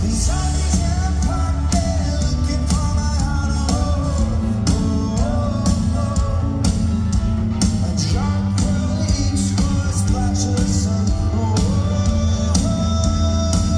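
Rock band playing live, a singing voice carrying the melody over heavy bass and steady drum hits.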